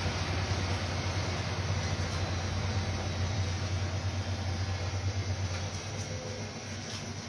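Siemens Siwamat Plus 573 front-loading washing machine running its rinse-and-spin programme: a steady low motor hum with an even whoosh from the turning drum, a little quieter near the end.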